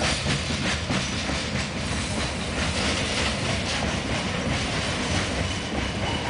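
Freight train of covered hopper cars rolling past with a steady rumble, its wheels clacking over the rail joints.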